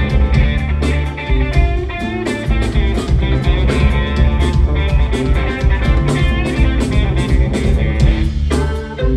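Live band playing an instrumental groove: electric guitar over bass and drums.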